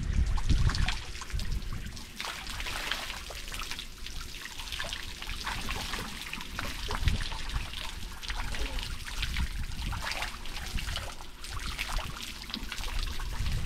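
Shallow seawater trickling and lapping, with many small irregular splashes, in a pool where nurse sharks are moving at the surface.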